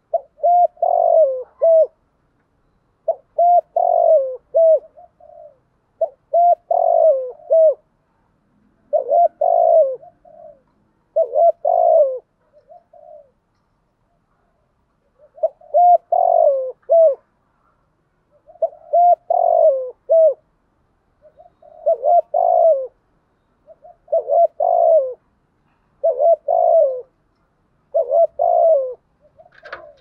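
Spotted dove cooing: about eleven short phrases of a few low coos each, one every two to three seconds, with a slightly longer pause near the middle.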